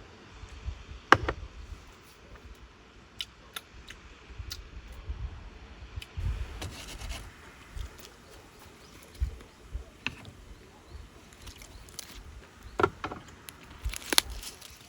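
Scattered handling noises: rubbing and scraping with a few sharp clicks and knocks, loudest near the end.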